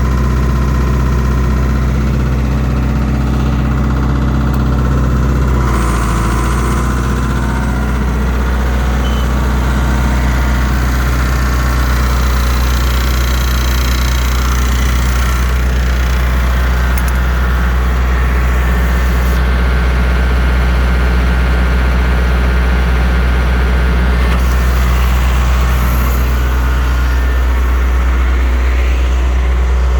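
Diesel generator engine running steadily, with a change in its tone about six seconds in.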